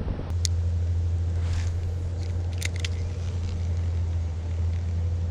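Steady low rumble of wind buffeting the microphone, with a few short clicks about half a second in and again near the middle.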